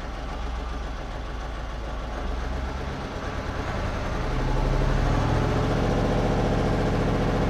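Dennis RS130 fire engine's diesel engine, heard from inside the cab, running at low speed while the truck is manoeuvred. About four and a half seconds in it gets louder with a stronger, steady note as the engine takes up the load.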